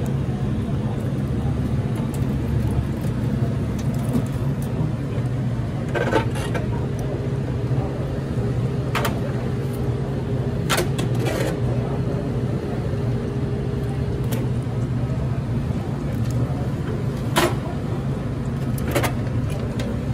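Steady low machinery hum, with about six sharp clicks and clanks as the metal and plastic parts of a U-Turn bulk candy vending machine are handled.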